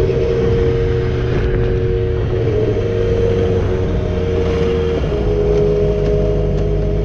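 Yamaha R6 inline-four sport bike running on the move, a steady engine drone mixed with wind rush on the microphone.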